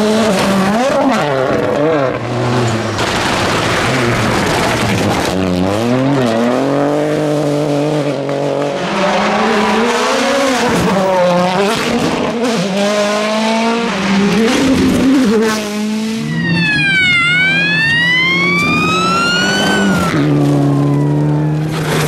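Turbocharged four-cylinder rally cars at full attack on loose gravel and dirt, one after another. The engines rev high and drop repeatedly through gear changes, with gravel and stones spraying off the tyres. About three-quarters of the way through, a high whistle falls and then climbs over a few seconds.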